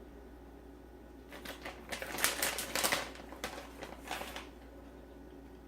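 A plastic bag crinkling and rustling in a run of short strokes for about three seconds, starting about a second in, while cheese is put on top of the filled potatoes.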